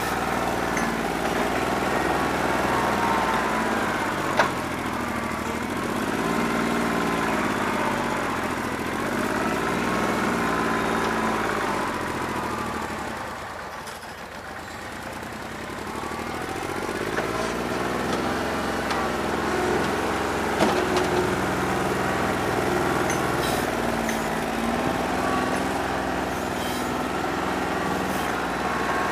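New Holland 1320 compact tractor's diesel engine running with a misfire from a bad injector. Its speed rises and falls several times, the sound dips quieter about halfway through, and there are a couple of sharp knocks.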